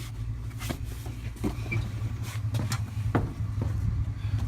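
A vehicle engine running with a steady low hum, with about five short sharp knocks and clicks scattered through it.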